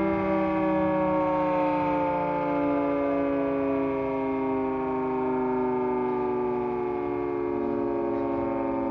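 Federal Signal 3T22 three-tone electromechanical siren winding down, its chord of several tones sliding slowly lower in pitch.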